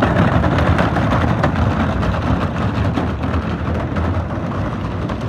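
Wheeled plastic trash cans towed behind a golf cart rolling over a gravel driveway: a loud, steady crunching rattle of wheels on gravel. It eases off slightly as the train moves away.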